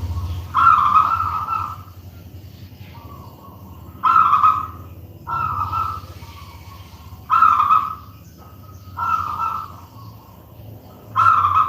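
Zebra dove (perkutut) cooing, repeating its call six times with gaps of one to two seconds, over a steady low hum.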